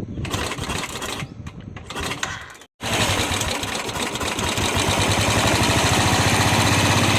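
Royal Enfield motorcycle engine running with an even, rapid beat. It breaks off abruptly at a cut about two and a half seconds in, then comes back louder and steady.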